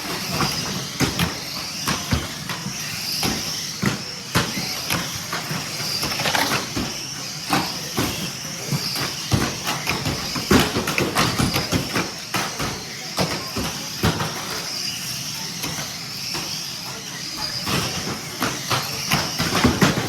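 Radio-controlled cars running, with a wavering high-pitched whine and many irregular knocks and clatters.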